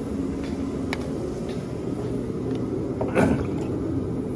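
A steady low hum with a few light clicks, and a louder short knock about three seconds in.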